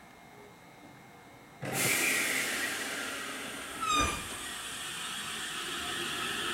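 JR Central 313 series electric train starting away: a sudden loud hiss of air about a second and a half in, typical of the air brakes releasing, then a brief high toot with a thump about four seconds in. Near the end a rising whine from the traction motors starts as it begins to move.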